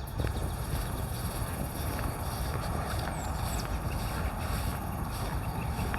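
Wind rumbling on the microphone, a steady low buffeting with no clear events.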